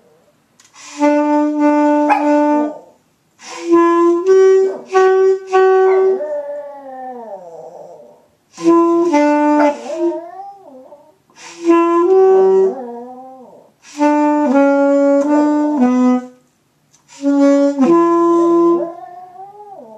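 A saxophone plays short phrases of held notes while a Maltese dog howls along, its voice sliding and wavering in pitch, heard most plainly in the tails and gaps after each phrase.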